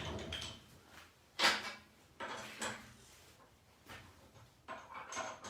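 Metal tooling being handled during a tool change on a manual milling machine, swapping a center drill for a drill bit: a string of separate metal clinks, knocks and scrapes, the loudest about one and a half seconds in. A low machine hum dies away in the first half second.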